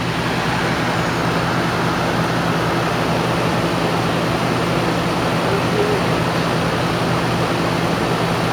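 A 13,500 BTU rooftop RV air conditioner running on high cool, its compressor and fan giving a steady hum and rush, with the Champion inverter generator running under the load. The air conditioner has started and is running on generator power.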